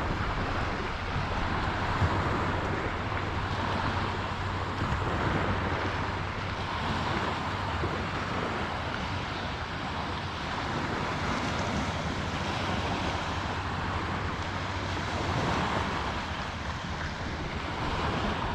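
Steady wind noise on the microphone over small waves washing on a beach shore, with a faint low hum underneath.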